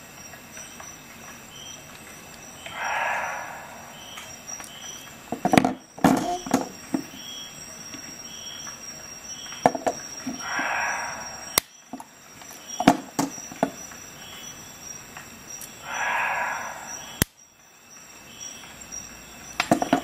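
Swiss army knife blades and tools being folded and snapped shut: a series of sharp metallic clicks, some in quick clusters. Three soft rushing swells lie between them.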